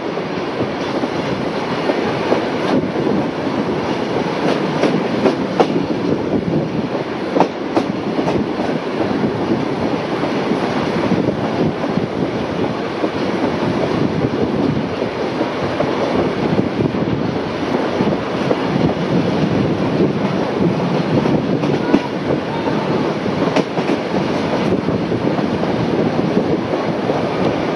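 Steam-hauled heritage passenger train running along the line, heard from an open carriage window: a steady rumble of wheels on the track with occasional sharp clicks.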